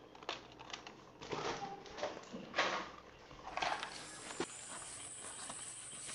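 Hands handling a plastic drone remote controller: scattered light clicks and rustles. About three and a half seconds in, these give way to a faint steady hiss with a thin high tone and a few soft rustles.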